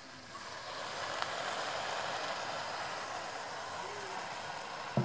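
Water just poured into a hot wok of stir-fried bitter gourd and tomato, sizzling and hissing steadily; the sizzle swells about half a second in.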